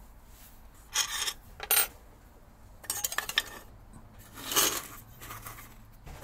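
Small metal pieces clinking and scraping against each other in four short bursts, the third a quick run of ticks.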